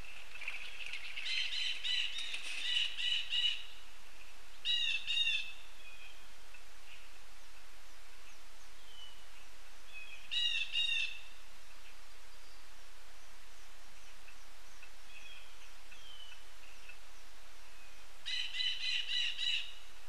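Pileated woodpecker calling: short bursts of loud, quickly repeated call notes in four bouts, the longest near the start, another about five seconds in, one about ten seconds in and one near the end.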